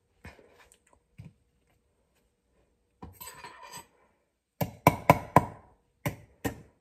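Metal fork striking and jabbing at a salt-crusted ball of ice on a cutting board: a quick run of sharp clicks, about four a second, over the last two seconds.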